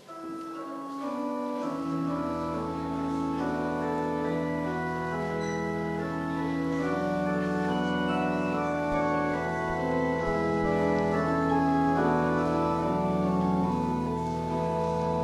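Church organ playing slow, sustained chords. A low pedal bass note comes in about a second and a half in and holds under the changing harmony.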